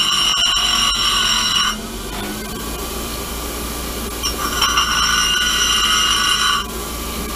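Bench grinder grinding a small steel drive dog. There is a high grinding whine while the part is pressed to the wheel; it stops about two seconds in and comes back from about four and a half to six and a half seconds in. The grinder motor runs steadily under it throughout.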